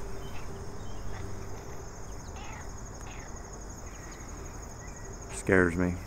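Insects trilling steadily in the background, one high-pitched pulsing trill, with a few spoken words near the end.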